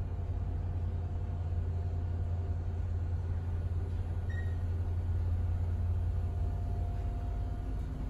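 Dover Traditional elevator car travelling up between floors: a steady low hum of the moving car, with one brief high beep about four seconds in.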